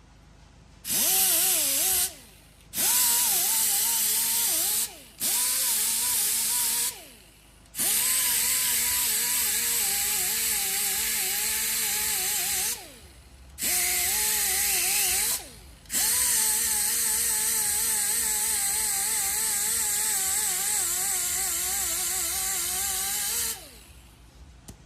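A power grinder grinding curb rash out of an alloy wheel rim. It runs in six bursts with short pauses between them, a whine with a wavering pitch over a loud hiss.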